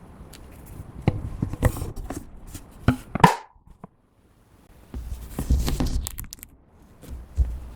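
Hands kneading and stretching clear slime: sticky squelches and clicking pops, with one louder pop about three seconds in, a brief pause, then more continuous squishing.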